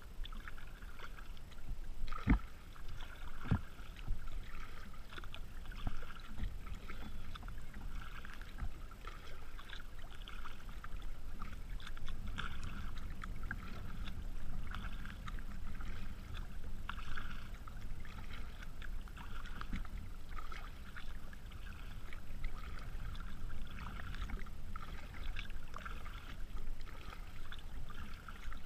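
Water lapping and splashing against a kayak's hull as it moves through choppy water, in a steady, uneven patter. Two sharp knocks come about two and three and a half seconds in.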